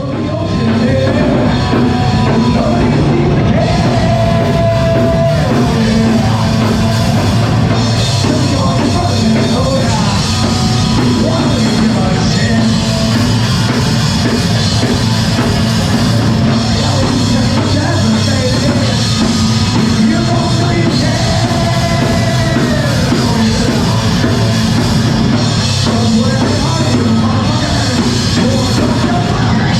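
Live heavy rock band playing loud, with drum kit, guitars and yelled vocals.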